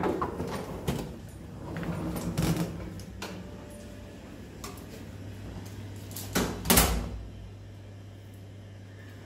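Movement and handling sounds: a rolling suitcase pulled over a tiled floor, with scattered clicks and knocks, and two heavy thumps about two-thirds of the way through, over a steady low hum.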